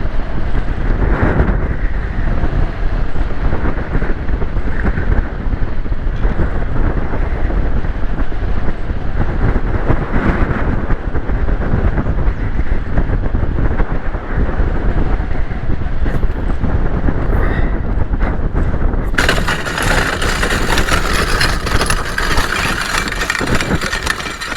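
Wind rushing and buffeting on the microphone as a paramotor glides down with its engine stopped after an engine failure. About three-quarters of the way through, it changes abruptly to a brighter, harsher hiss.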